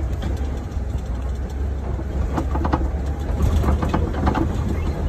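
Safari ride truck running with a steady low rumble, with a few light rattles or knocks from the vehicle partway through.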